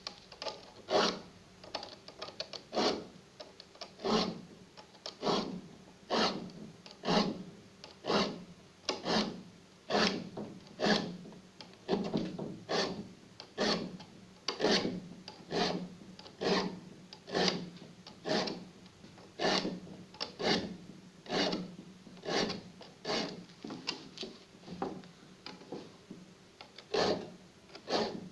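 A hand file rasping across the teeth of a wood saw to sharpen them, in regular strokes about one a second.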